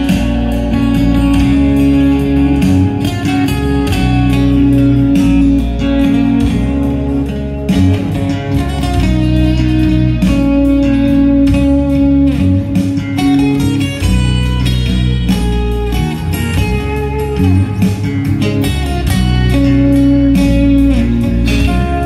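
Live band music through a PA: an instrumental passage of amplified guitar playing over an electric bass line, without vocals.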